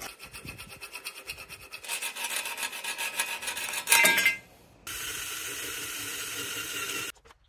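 Small hacksaw cutting aluminium angle with rhythmic back-and-forth strokes, ending in a louder ringing scrape about four seconds in. Then a cordless drill runs steadily for about two seconds, boring through the aluminium frame, and cuts off suddenly.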